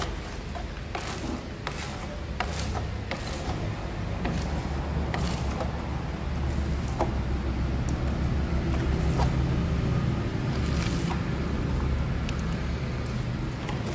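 A steady low mechanical hum with scattered scrapes and light clicks, like hand work going on over running machinery.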